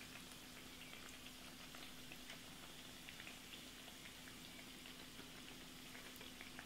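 Aloo kachoris deep-frying in oil over medium heat: faint, scattered crackling and sizzling, over a steady faint low hum.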